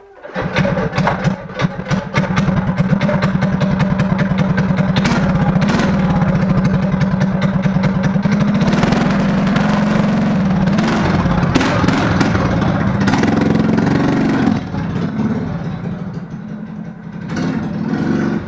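Mini bike's small single-cylinder engine running, starting abruptly and holding a fast steady beat, climbing a little in pitch around the middle as it revs. About fourteen seconds in it drops back to a quieter idle, then swells briefly again near the end.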